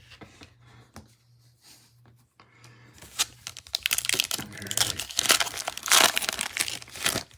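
A foil trading-card pack wrapper crinkling and tearing open. The crackle starts about three seconds in and runs for about four seconds.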